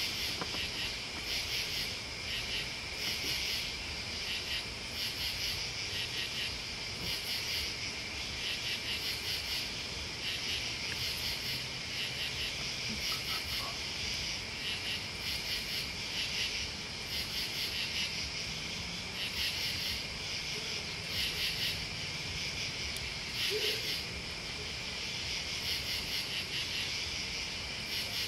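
Crickets chirping in rapid pulsed bursts about once a second, over a steady, lower-pitched insect trill.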